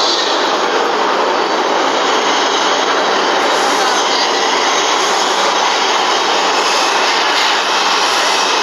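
Loud, steady noise of a New York City subway train at a station platform: a continuous rushing rumble with no breaks.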